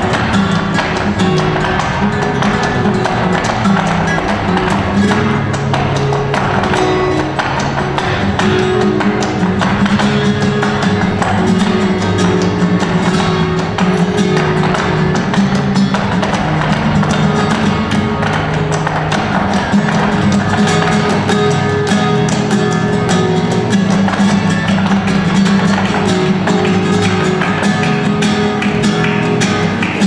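Live flamenco music: a flamenco guitar playing, with sharp percussive clicks from the dancers' shoe footwork on the wooden stage and hand claps running through it.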